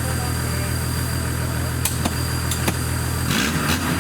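Modified Toyota Land Cruiser off-road truck engine idling steadily, with a few sharp knocks; about three seconds in the engine revs up and the sound turns rougher.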